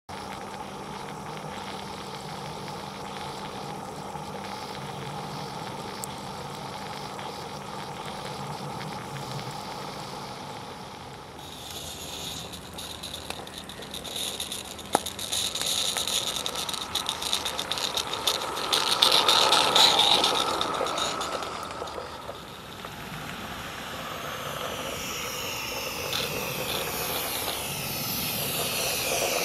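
Live-steam Roundhouse Fowler garden-railway locomotive hauling a freight train, with a steady hiss of steam and no exhaust chuff because no chuffer is fitted. Its wagons' wheels rattle and click over the track, growing louder as the train passes close about two-thirds of the way through.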